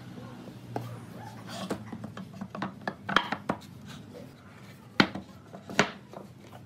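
Wooden beams knocking and scraping against each other and the wooden workbench as a glued cross joint is fitted together, with a cluster of small knocks and two loudest sharp knocks about five and six seconds in.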